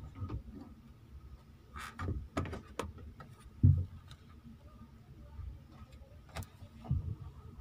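Handling noise: scattered knocks and clicks, with one louder thump about three and a half seconds in, over a faint steady hum.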